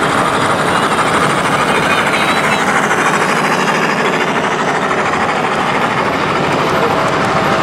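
LGB garden-scale model passenger train running past: a steady, rapid clatter of its wheels on the track with a motor whir.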